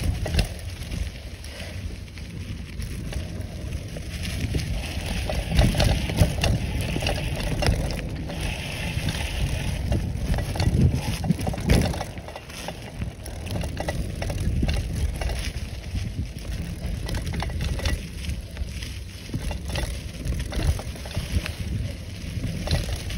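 Bicycle riding over a dry, leaf-covered dirt trail: tyres crunching and rattling over leaves and bumps under steady wind noise on the microphone.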